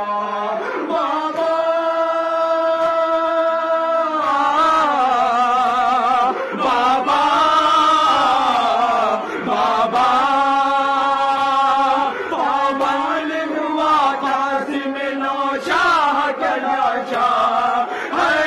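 Male voice chanting a noha, a Shia mourning lament, into a microphone, sung unaccompanied in long held notes that waver and glide in pitch.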